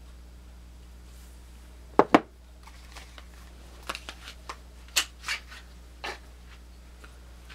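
Swiss Army knives being handled: two sharp clicks close together about two seconds in, then a scatter of lighter clicks and rustles, over a steady low electrical hum.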